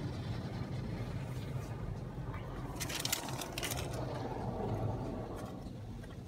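Istobal automatic car wash working over the car, heard muffled from inside the cabin: a steady low hum with the wash of water and brushes on the bodywork. A brief patter of clicks and rattles comes about three seconds in.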